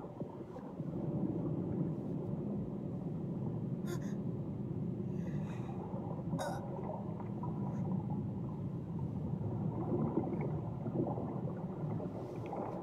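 Steady low rumble of churning water on an animated film's soundtrack, with two short sharp sounds about four and six and a half seconds in.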